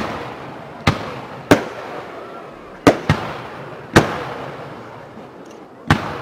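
Aerial firework shells bursting in the sky: about seven sharp bangs at uneven intervals, each followed by a rolling echo that fades before the next.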